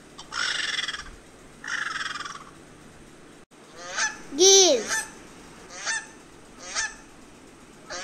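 Two breathy hisses, then domestic geese honking: short, harsh honks about once a second.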